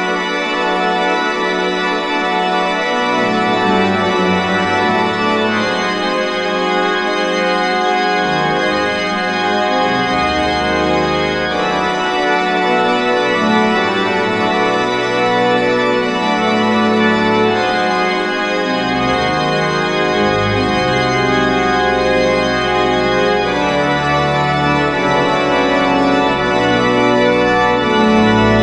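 Organ improvisation: sustained full chords that change about every six seconds, with low bass notes joining a few seconds in.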